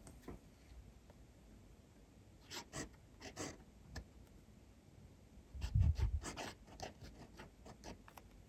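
Graf von Faber-Castell Classic fountain pen nib scratching across paper in short strokes as letters are written. A few soft low thumps come a little past the middle, the loudest sounds in the clip.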